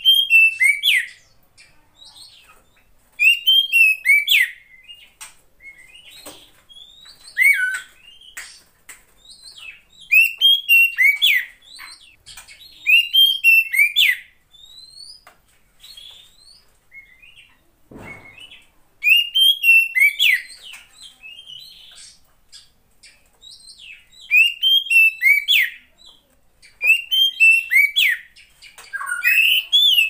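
Female oriental magpie-robin calling in short bursts of rising and falling whistled notes, a burst every few seconds. A single knock comes about eighteen seconds in.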